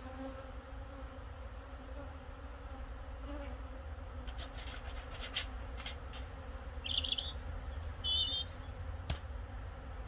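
Honeybees buzzing around an open, full hive. Clicks and scraping come between about four and six seconds in as a frame is worked out of the box, then two short high chirps and a single sharp click near the end.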